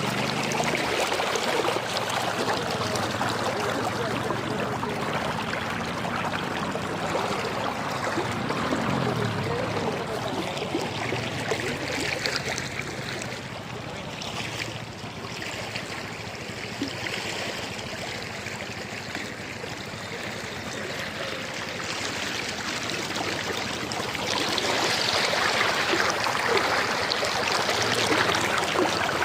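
Stream water rushing and splashing steadily, growing louder about 24 seconds in. A low hum rises briefly about eight seconds in.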